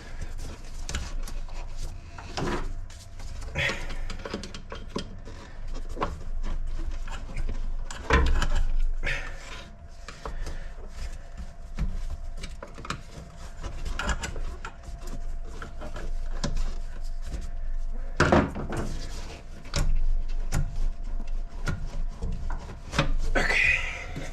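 Hands and tools working a tube off an engine's intake: irregular clicks, scrapes and rubbing, with louder knocks about eight and eighteen seconds in.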